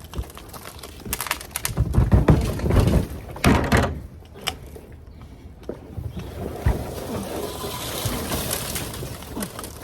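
Scraping, knocking and rustling as a heavy planter is wrestled out of a dumpster, loudest between about one and four seconds in.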